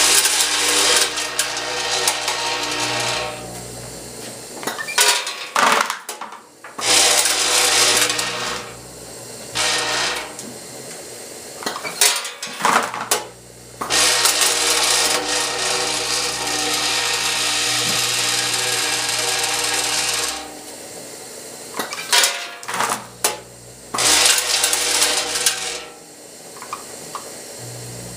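Vibratory feed pans of an automatic cascading weigh-fill scale running: wrapped cough drops rattle and slide along the pans over a steady electric vibrator hum, in long runs that stop and start again. Sharp clacks and clatters come in the pauses as the product's gates and hopper act.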